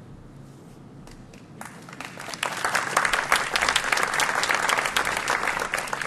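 Audience applauding in a lecture hall, starting about a second and a half in, building quickly to full, steady clapping, and beginning to thin out near the end.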